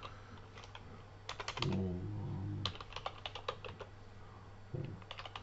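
Typing on a computer keyboard: quick irregular runs of key clicks as a name is entered. A brief low hum sounds about two seconds in.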